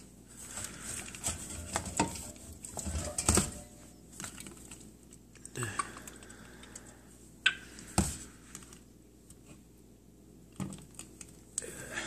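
Irregular clicking and tapping of an African grey parrot's beak at the opening of an aluminium soda can, with a few sharper knocks.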